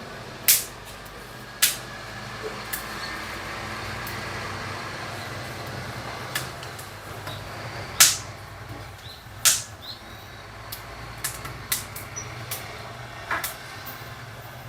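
Scattered sharp knocks and clicks, the loudest about eight seconds in, over a steady low hum and a noise that swells and fades in the middle.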